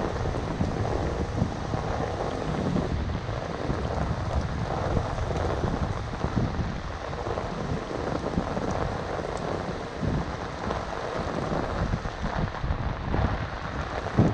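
Steady rain falling on a flooded street and its pooled water, with water running into a curb-side drain grate that has been cleared of leaves, over a low rumble.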